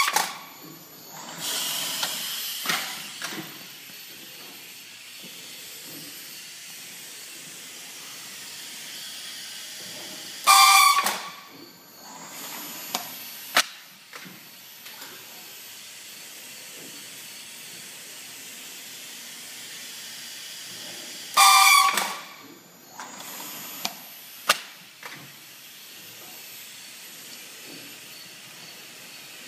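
Automatic loader of a Titan Rolls CNC roll bending machine cycling about every eleven seconds. Each cycle brings a loud, short blast of hissing, whistling air exhaust from its pneumatic valves, then a sharp click or clack a few seconds later, over a steady background hiss.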